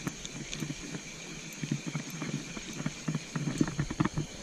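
Spinning reel being cranked to retrieve line with the rod bent under load, its handle and gears giving quick irregular clicks that come thicker after about a second and a half.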